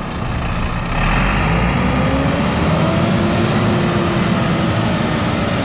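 Renault tractor unit's diesel engine revving under load as the truck turns on wet asphalt. It grows louder about a second in, the revs climb gradually and then hold, and the truck does not manage to break into a drift.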